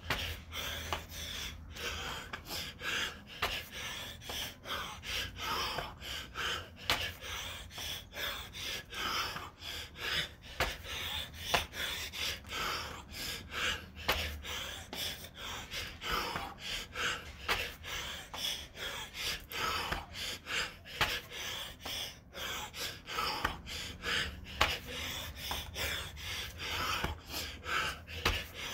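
A man breathing hard in rapid, rhythmic gasps and pants, one to two breaths a second, out of breath from continuous burpees.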